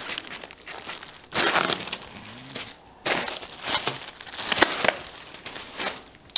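Clear plastic bags and plastic-sleeved paper pads crinkling and rustling as they are handled, in a few separate bursts.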